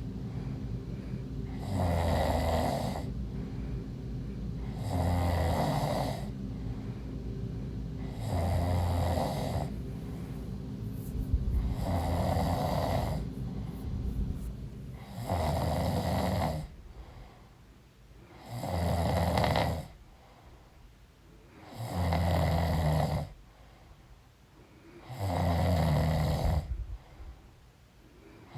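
A woman snoring in her sleep, eight loud regular snores about every three and a half seconds. A steady low hum under the first half fades out a little past halfway.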